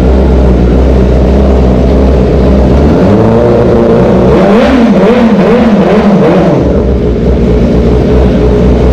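Kawasaki ZX 3 sport-bike engine idling, then revved in a run of quick blips, about five rises and falls, from about three to seven seconds in, before settling back to idle. The note is bassy with a slight rasp.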